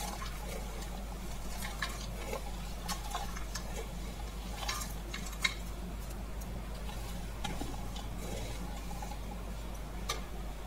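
Steel spoon scooping a dry namkeen mixture of crisp flattened-rice flakes, peanuts and fried sev from a steel bowl onto a steel plate: scattered light clicks and rustles of the flakes and of spoon on steel, over a steady low hum.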